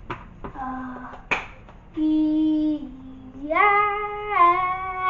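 A voice holding long drawn-out notes that step up and down in pitch, after a few light knocks and clicks.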